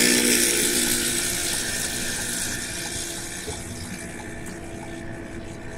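Cab noise of a loaded Scania R440 truck at highway speed: the low, steady hum of its DC13 inline-six diesel under road and wind hiss. The sound fades gradually as the driver lifts off the accelerator.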